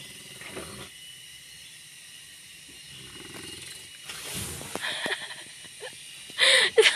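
Sleeping Etawah crossbreed goat snoring, with low rattling snores about a second in and again around three seconds in, and a louder breathy burst near the end.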